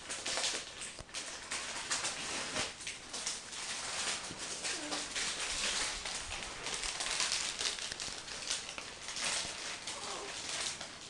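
Steady close rustling and rubbing of soft fabric, a blanket and cloth being handled right by the microphone.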